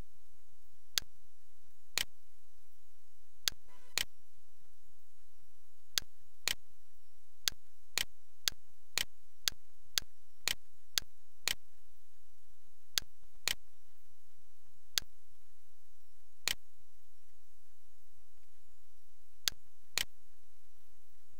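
Sharp single clicks of a computer mouse, about twenty of them at uneven intervals, sometimes two or three in quick succession.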